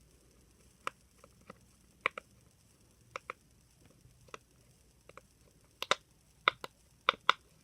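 Irregular sharp little pops from a pufferfish fidget toy being pressed with the fingers, coming more often near the end.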